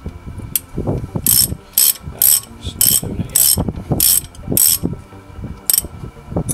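Socket ratchet clicking in short repeated strokes about every half second as a brake caliper bolt is wound in, with a pause near the end.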